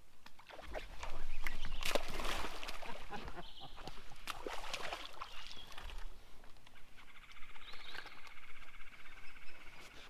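A hooked bass thrashing and splashing at the water's surface during a short fight, with sharp splashes and knocks loudest about a second in. Near the end a steady buzz runs for a few seconds.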